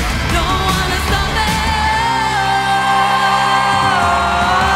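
Woman singing a pop song over a backing track, belting one long high note through the second half that dips in pitch and rises again near the end.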